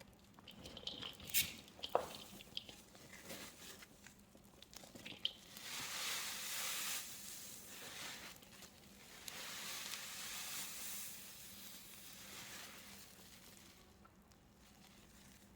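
A few small crunches and clicks, then an aerosol can of foam spray hissing in two bursts of about two seconds each.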